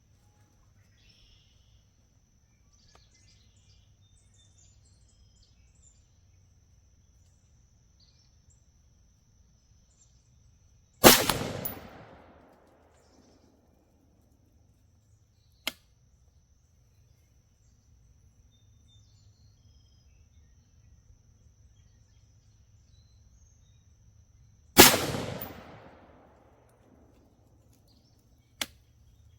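Two rifle shots about 14 seconds apart from a PSA Sabre 15 AR-15 with a 13.7-inch barrel firing .223 Remington 55-grain ammunition, each a sharp crack with a short echoing tail. A much fainter sharp click follows each shot about four seconds later.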